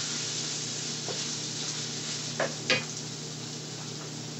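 Tomato, onion and basil sauce sizzling in a stainless steel skillet as it is stirred with a wooden spoon, with two sharp knocks of the spoon against the pan a little past halfway.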